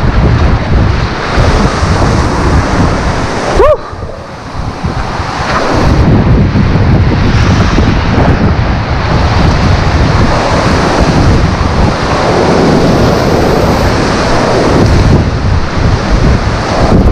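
Strong wind buffeting the microphone over surf breaking on the shore. About four seconds in there is a short rising squeak and the wind drops off for about a second before building again.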